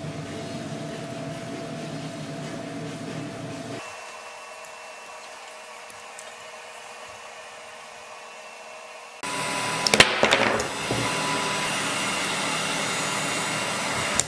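Steady whirring of a heat gun's blower, quieter for a few seconds in the middle, with a few clicks as brass hose fittings are handled about ten seconds in.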